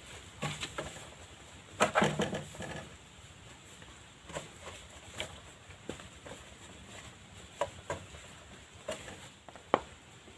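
Scattered light knocks and clicks of hands handling parts and tools while refitting a motorcycle's front fork tube. A short clatter about two seconds in is the loudest, and there is one sharp knock near the end.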